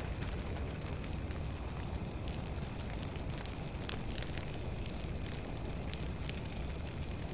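Large bonfire of brush and branches burning: a steady rush of flame with frequent sharp crackles and pops.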